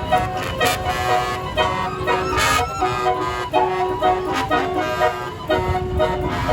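Truck's multi-trumpet telolet air horn playing a tune: a run of held horn notes that change pitch every fraction of a second.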